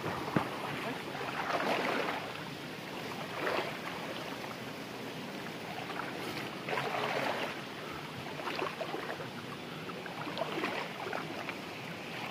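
People wading through a shallow, muddy river: irregular splashes from legs pushing through the water over the steady rush of the stream.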